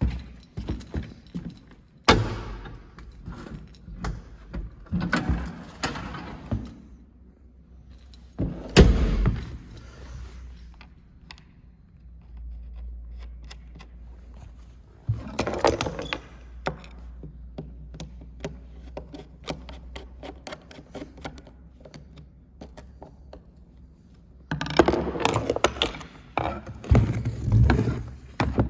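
Irregular thuds, knocks and scraping of objects being moved and set back in place, in bursts with quieter gaps between them.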